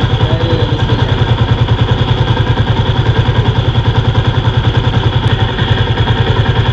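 Motorcycle engine idling steadily, with an even, fast pulse.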